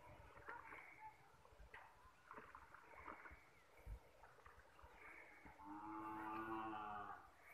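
Near silence: a faint outdoor background, with a drawn-out pitched call lasting about a second and a half near the end.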